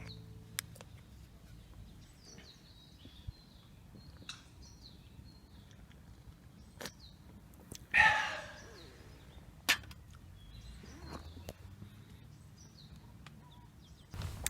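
Quiet outdoor ambience with faint bird chirps and scattered sharp clicks. A louder, harsh sound falls in pitch a little past halfway.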